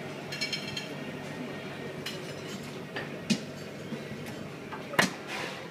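Steady room hum with scattered clinks of dishes and glassware. The sharpest clink comes about five seconds in.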